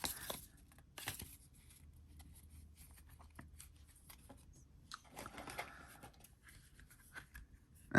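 Faint handling noises of cards and paper inserts being moved about and lifted out of a cardboard box: scattered light taps and clicks, with a short rustle about five seconds in.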